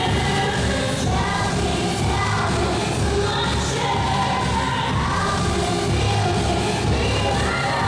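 K-pop song played for a dance routine: a steady beat with a singer's melody over it.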